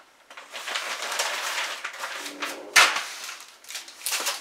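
Newspaper pages rustling and crinkling as they are handled, with a sharp paper crack about two-thirds of the way through and a smaller one near the end.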